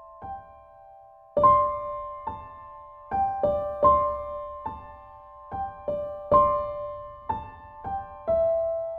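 Background music: a slow, gentle piano melody of single struck notes that ring on and fade.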